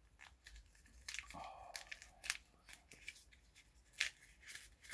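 Small packaging being handled and opened: light crackling with a few sharp clicks, the loudest about four seconds in.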